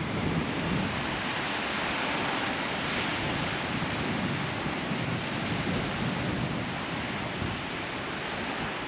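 Steady wind rushing across and buffeting the microphone.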